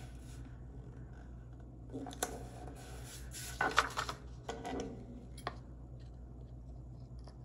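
A paper planner page being handled and rustling, with a few sharp snaps and clicks as it is pulled off the planner's plastic binding discs, over a steady low hum.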